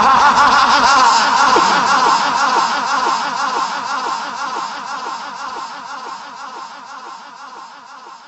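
A man laughing theatrically in a long run of short 'ha' pulses, about two a second, fading slowly away.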